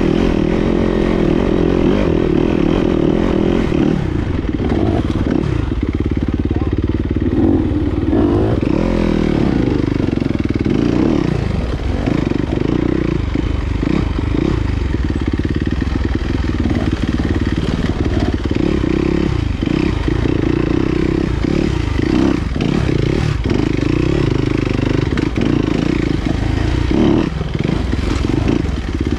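Enduro dirt bike engine being ridden along a single-track trail, its pitch rising and falling again and again as the throttle is opened and closed.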